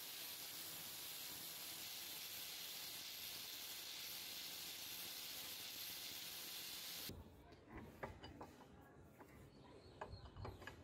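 Angle grinder with a polishing disc running against the steel wrench jaw, heard as a steady hiss that cuts off abruptly about seven seconds in. It is followed by scattered metal clicks and knocks as the screw wrench is handled in a bench vise.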